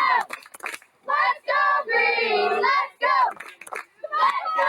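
A group of young voices singing loudly together in short phrases, each about a second long, with brief breaks between them.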